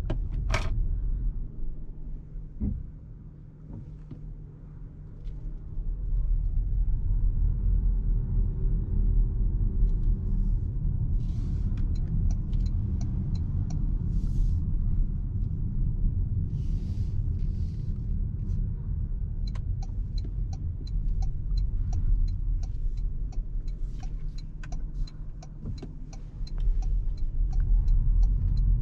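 Cabin sound of a 2026 Toyota RAV4 2.5-litre hybrid on the move: a low road and drivetrain rumble that drops and then rises again about six seconds in. Through the second half, a steady run of light ticks sounds over the rumble.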